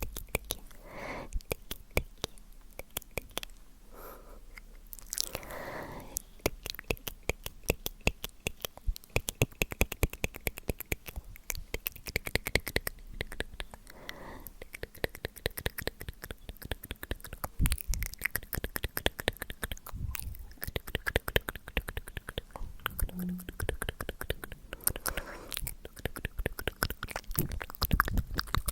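Close-miked ASMR mouth sounds: a dense, rapid run of wet tongue clicks and lip smacks, with a few soft breathy sounds in between.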